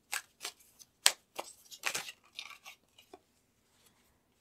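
Tarot cards being shuffled and handled, with cards slid out and laid down: a quick run of short snaps and rustles, the sharpest about a second in, dying away about three seconds in.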